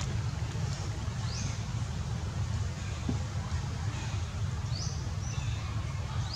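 Several short, high chirps, each falling in pitch, over a steady low rumble.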